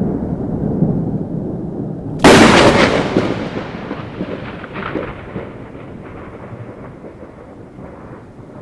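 Thunder: a low rumble, then a sharp, close crack about two seconds in, the loudest moment, rolling away into a fading rumble.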